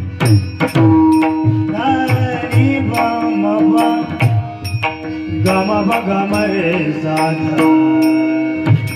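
Indian devotional music: hand-drum strokes and a steady held drone under a sliding, ornamented melody. The drumming drops back through the middle and returns near the end.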